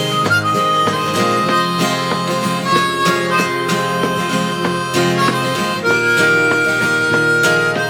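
Instrumental break of a song with no singing: a harmonica plays long held melody notes over acoustic guitar accompaniment.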